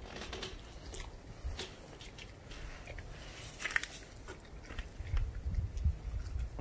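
German shepherd puppy chewing a raw chicken quarter, with irregular sharp crunches, the loudest a little under four seconds in. A low rumble joins in during the last second and a half.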